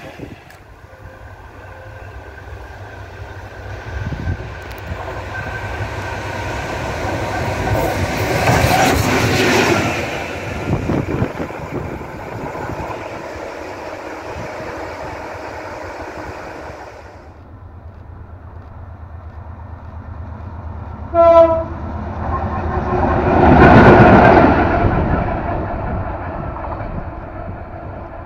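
Sri Lanka Railways M6-class diesel locomotive running on the rails, passing close twice, the second time loudest. It sounds one short blast of its horn about 21 seconds in, just before the second pass. The locomotive is on its first trial run after a full overhaul.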